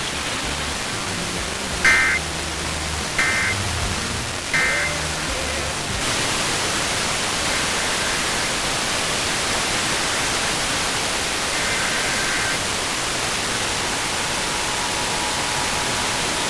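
Radio static hissing under EAS data signals: three short screeching bursts of the end-of-message code about a second apart near the start. The static then grows louder, a faint data burst comes near 12 seconds, and about 14 seconds in a steady two-tone emergency alert attention signal begins.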